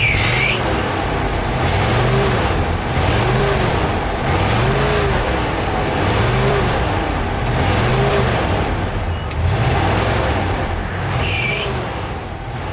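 1977 Chevy pickup's 350 V8 being revved over and over, its pitch rising and falling about every second and a half. A slipping drive belt squeals briefly right at the start and again near the end.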